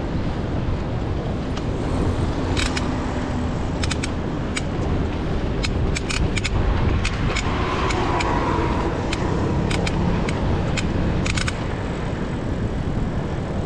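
Mountain bike being ridden: wind rumbling on the microphone, with scattered sharp clicks and rattles.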